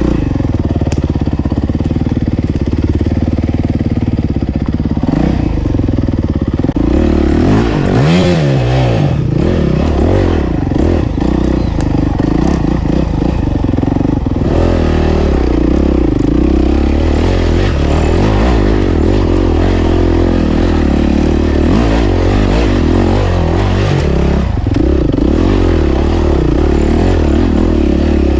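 Enduro dirt bike engine being ridden off-road, its revs rising and falling with the throttle, with a quick rev swing about eight seconds in, and the rattle and clatter of the bike over rough ground.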